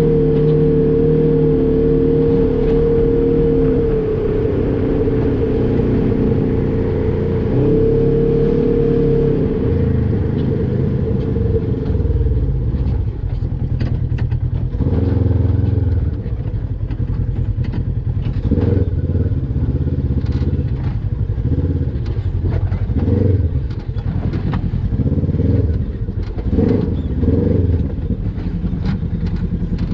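Polaris RZR XP 1000 side-by-side's parallel-twin engine crawling over rock. It holds a steady drone for about the first twelve seconds, then runs in short, uneven blips of throttle, with scattered knocks and clatter.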